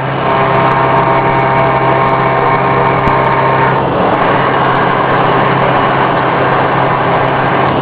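CNC vertical machining centre with a ball-nose insert cutter milling grey cast iron: a steady spindle hum with several held tones over a dense cutting hiss. Some of the tones fade about four seconds in.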